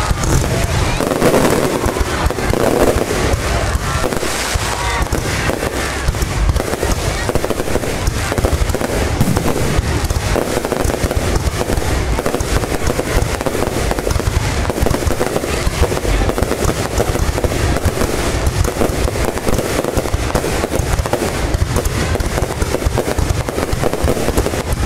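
Aerial fireworks display going off in a rapid, unbroken run of bangs, with no lull.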